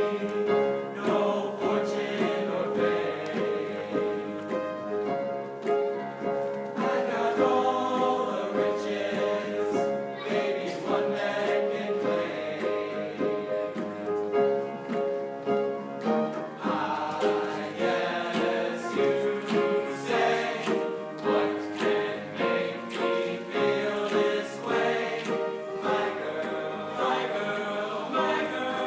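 High school choir singing in parts, holding chords that move from note to note.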